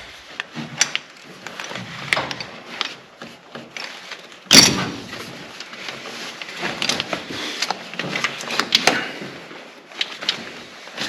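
Racing seat-belt harness being tightened: irregular clicks and rattles of the metal buckle and adjusters as the straps are pulled, with one sharp knock about four and a half seconds in.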